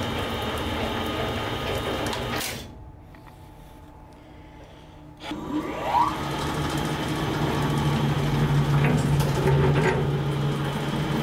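The 1950s Sedgwick book lift's electric motor running with a steady mechanical hum. It drops away for a couple of seconds, then starts up again with a quick rising whine and a clunk, and runs on steadily, now under its own power with the lift car moving.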